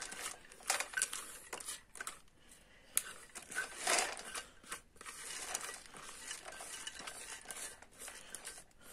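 Damp salted sunflower seeds poured from a metal bowl onto an oiled metal baking tray: a rattling patter of seeds landing on the metal, in uneven bursts, heaviest about four seconds in.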